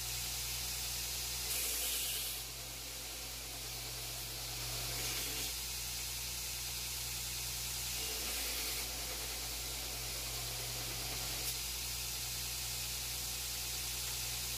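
Homemade belt grinder running with a steady motor hum while a steel piece is pressed against the abrasive belt in several passes. Each contact adds a louder grinding hiss.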